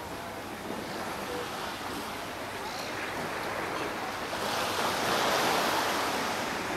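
Small harbour waves washing against the shore, a steady wash of water that swells louder for about two seconds past the middle.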